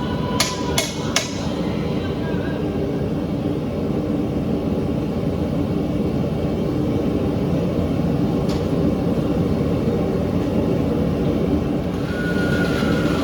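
Steady roar of a propane forge burner. Three sharp ringing metal strikes, about 0.4 s apart, come just after the start, and one faint strike follows later.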